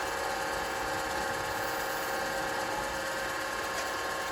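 BAUER 14 x 20 in. electronic variable-speed wood midi lathe running at top speed, about 1,800 RPM, with no workpiece mounted: a steady motor whine. It runs smoothly, with no vibration.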